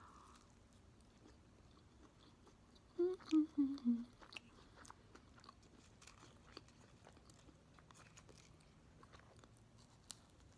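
A person chewing food close to the microphone, with faint small mouth clicks, while eating the last of a fast-food burger and fries. About three seconds in comes a brief hummed sound of four quick notes falling in pitch.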